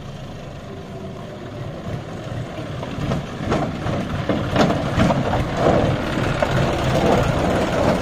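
John Deere 5050 D tractor's three-cylinder diesel engine running as the tractor, pulling a loaded trailer, draws close, growing louder about three seconds in. A few sharp knocks and rattles come as it nears.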